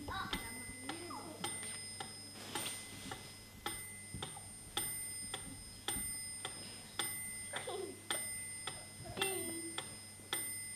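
Steady clock-like ticking, about two ticks a second, alternating stronger and weaker, with a few short voice-like sounds over it.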